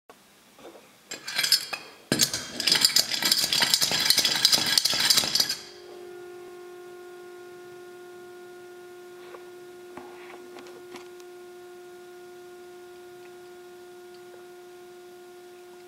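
Tin humming top: loud metallic clattering for a few seconds as its plunger is pumped, then from about five and a half seconds in a single steady hum as the top spins freely.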